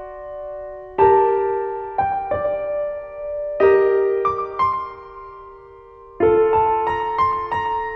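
Slow, gentle solo piano background music: single notes and chords struck about a second apart and left to ring, with a lull of over a second before a fuller chord near the end.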